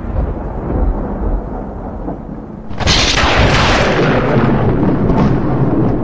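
A deep, continuous rumble, then a loud crash about three seconds in that slowly dies away.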